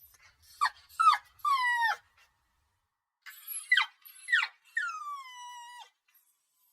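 Puppy crying: two runs of high whimpering yelps, each sliding down in pitch. The first run of three comes about half a second in. After a short pause comes a second run of three, ending in a long drawn-out whine.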